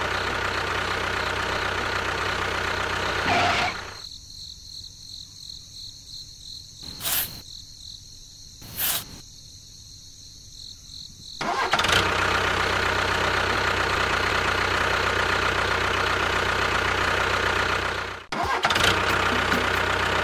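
Small electric motor running steadily. It drops away to a quiet stretch for several seconds, with two short loud bursts in it. Then it starts up again abruptly, breaks off briefly and runs on.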